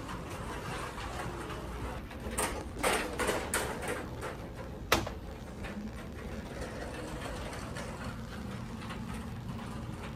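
Steady background hum of a store, with a quick run of rustling clicks about two to three and a half seconds in and one sharp click about five seconds in.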